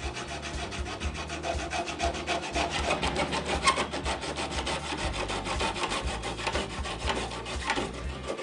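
Hand metal saw cutting through a 1 5/8-inch corrugated copper-tube coax cable (copper outer conductor over foam dielectric) along a cutting gauge, in quick steady back-and-forth strokes.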